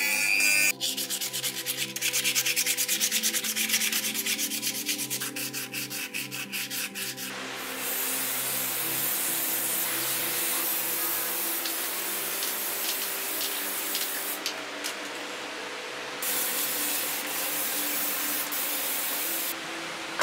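A rotary tool's sanding drum whines and stops within the first second, followed by several seconds of fast, rhythmic scraping strokes. Then a paint spray gun hisses steadily in long passes, breaking off briefly twice.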